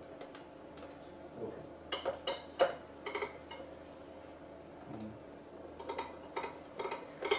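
Light metallic clicks and clinks from a small screwdriver turning screws among the steel wire struts of a model plane's float landing gear. They come in two clusters, about two seconds in and again near the end.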